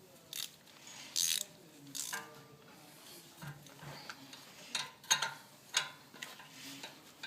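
Metal hand tools and brake parts clinking and clanking: a string of irregular sharp knocks, some with a short metallic ring, the loudest a little past the middle.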